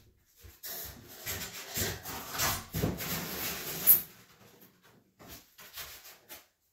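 Scraping and rubbing of wood as a large, heavy sheet is pulled out from under wood pieces, ending in a sharp knock at about four seconds; a few faint knocks and shuffles follow.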